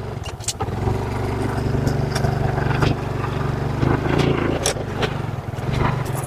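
Motorcycle engine running steadily as the bike rides on over a rough road, building up in the first second, with scattered knocks and rattles from the bike jolting over the surface.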